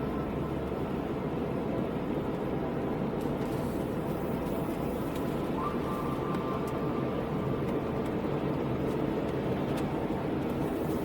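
Car driving at steady speed: an even rumble of engine and tyre noise.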